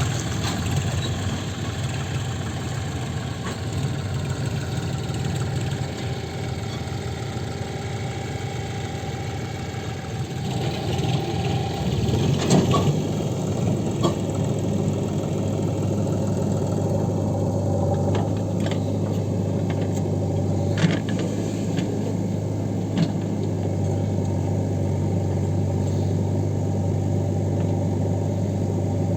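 Heavy diesel machinery running steadily: the engines of a JCB 3DX backhoe loader and tractors, the engine note shifting about ten seconds in. A few sharp knocks of the working machinery come in the second half.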